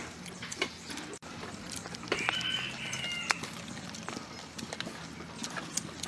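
A rooster crows once about two seconds in, a single call lasting about a second. Small clicks and crunches of people eating fresh vegetables are scattered around it.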